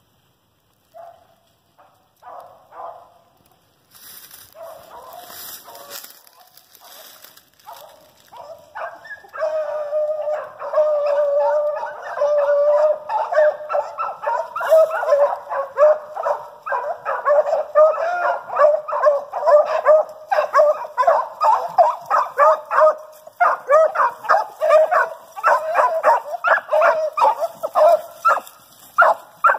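Pack of beagle hounds baying hot on a cottontail rabbit's scent trail, faint at first and growing louder as the pack closes in. From about nine seconds there is a long drawn-out bawl, which breaks into quick, repeated chop barks over the last third.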